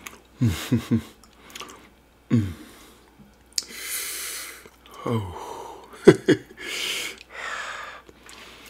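A man making short, wordless vocal sounds that slide down in pitch, along with breathy huffs. A sharp click a little after six seconds is the loudest sound.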